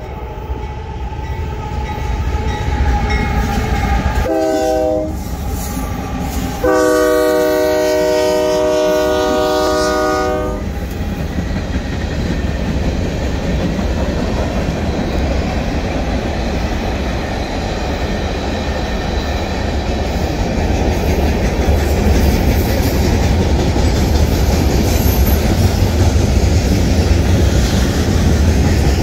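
Union Pacific freight train's locomotive air horn sounding for a grade crossing: a short blast about four seconds in, then a long blast of about four seconds. Then the diesel locomotives and freight cars roll past with a steady rumble of wheels on the rails, growing slightly louder near the end.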